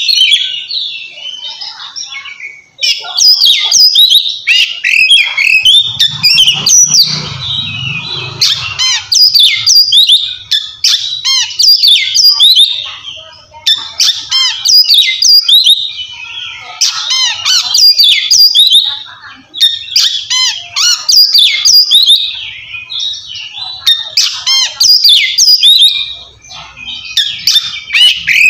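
Oriental magpie-robin (kacer) singing its loud, clear whistled 'ngeplong' song, a challenge call to a rival. The song comes in rapid gliding phrases a few seconds long with brief pauses between them.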